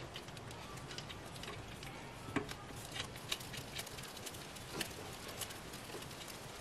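Scattered light clicks and taps of metal parts and a bolt being handled by hand at the alternator mounting, irregular and a few a second, with a sharper tap about two and a half seconds in.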